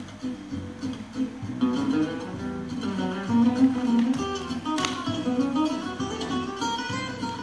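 Flamenco-style acoustic guitar music, plucked and strummed, with one sharp click nearly five seconds in.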